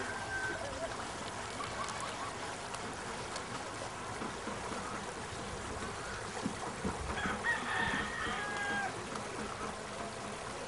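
A rooster crowing: one held, drawn-out crow about seven seconds in, with a shorter call at the very start, over steady background noise.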